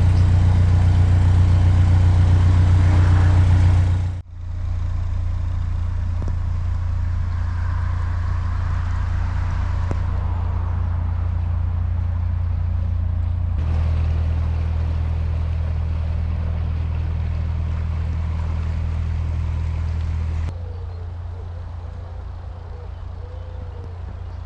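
Narrowboat engine running steadily at cruising speed, a low even hum. The sound breaks off sharply about four seconds in and shifts in tone and level twice more, near the middle and later on.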